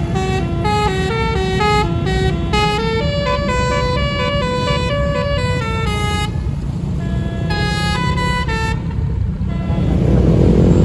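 A bus's telolet basuri horn, a multi-tone musical air horn, plays a quick stepping melody of clear notes and stops about nine seconds in. Under it is a steady low engine rumble that grows louder near the end.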